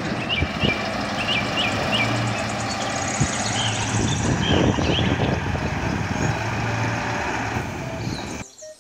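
Diesel engine of a heavy eight-wheeled dump truck running steadily as the truck crawls slowly over uneven ground. The sound cuts off abruptly near the end.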